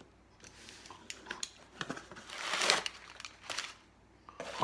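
A cardboard box being opened by hand: packaging rustling and crinkling with scattered small clicks and knocks, and a louder, longer rustle about halfway through.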